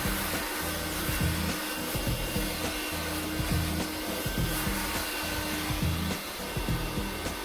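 Audew cordless handheld vacuum cleaner running steadily, a continuous motor whine and airflow hiss, with background music that has a steady bass beat.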